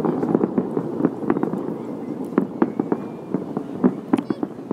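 Fireworks going off: a dense run of bangs and crackling pops that thins out and grows quieter over a few seconds.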